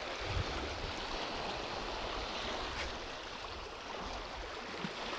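Steady riverside water noise, a continuous wash with a low rumble beneath it. A soft thump comes about half a second in.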